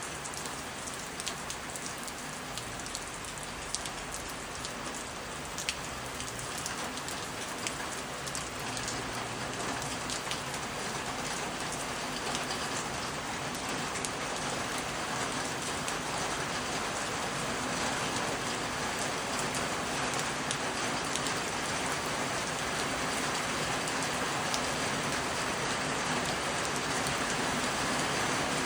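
Rain falling. In the first half, single drops strike with sharp ticks over a steady hiss; the rain then builds gradually into a heavier, denser, even hiss toward the end.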